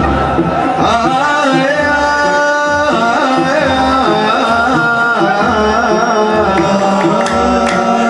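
Live Arabic wedding song: a male singer, amplified through a handheld microphone, sings long, drawn-out bending notes over a melody and a steady drum beat.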